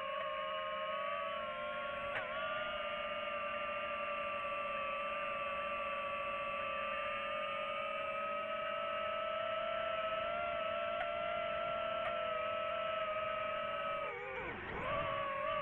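DJI FPV drone's motors and propellers whining at a steady pitch in flight; near the end the pitch drops sharply and swings back up as the throttle is cut and reapplied in a dive.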